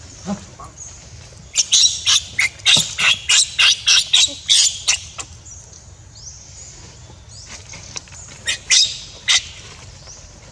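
A rapid series of short, sharp, high-pitched animal calls, about three or four a second for a few seconds, then a brief second run of three calls near the end.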